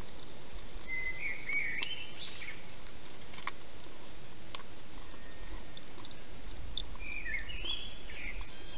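Two short warbling phrases of a songbird, about a second in and again near the end, over a steady hiss. A few soft clicks come from a hedgehog chewing food at a dish.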